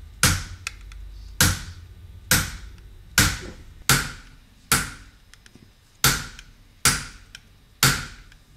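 Silversmith's chasing hammer tapping a chasing tool on a silver plate set in pitch. Nine sharp taps come about one a second, each with a short ring, with a slightly longer pause about halfway.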